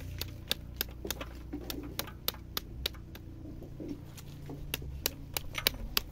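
Wooden stick beating the skin of a halved pomegranate held over a metal basin to knock the seeds out: a quick, uneven run of sharp knocks, about three a second.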